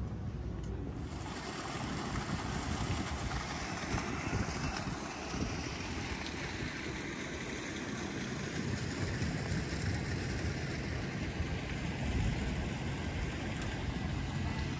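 Wind buffeting the microphone, a gusty low rumble over a steady outdoor rushing sound that swells in about a second in.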